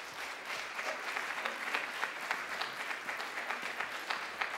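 Audience applauding: many overlapping hand claps at an even strength.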